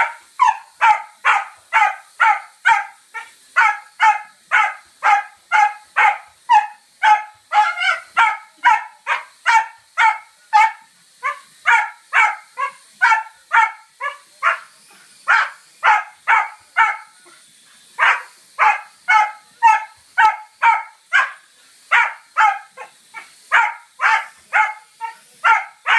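Cocker spaniel barking over and over, about two to three barks a second, with a short pause about two-thirds of the way through. The dog is barking at a small quadcopter that it dislikes.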